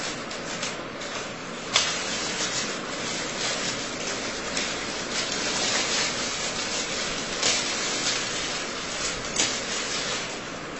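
Paper rustling and crinkling as a large sheet is handled and folded back on an easel, with a few sharp crackles.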